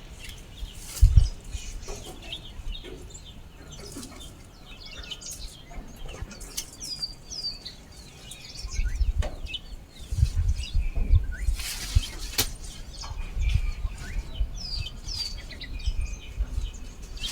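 Birds chirping in short falling calls, a few together about seven seconds in and again near fifteen seconds. Underneath are rustling and snapping from garden plants being pulled up and cleared, and low gusts of wind on the microphone.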